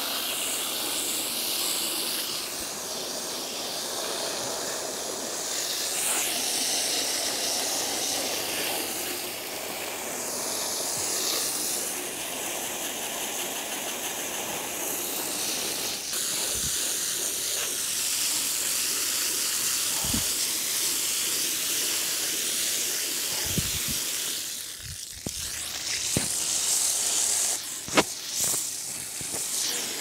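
Garden hose spraying water onto a window air conditioner's fan and coils: a steady hiss of spray with splashing, which dips briefly about 25 seconds in. A few knocks and a sharp click come near the end.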